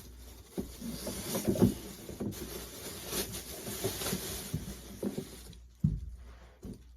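Cardboard and plastic packaging rustling and knocking as a boxed air compressor is unpacked, with a couple of sharper knocks.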